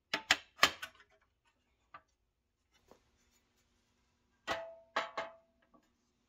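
Pressed-steel toy truck parts clacking together as they are fitted by hand: a few sharp metal clicks in the first second, then a cluster of clanks with a brief metallic ring about four and a half seconds in as the steel bed is set down onto the chassis.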